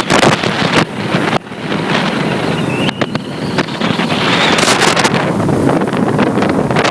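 Loud, gusting wind buffeting the microphone on a fishing boat under way, over the rush of water and the Suzuki DF70 four-stroke outboard. The buffeting drops briefly about a second and a half in.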